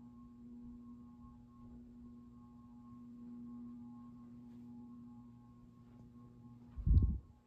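Craftmade CXL ceiling fan motor humming steadily at its lowest setting, a loud electrical hum that comes from running the fan on a dimmer. Near the end, a brief loud thump.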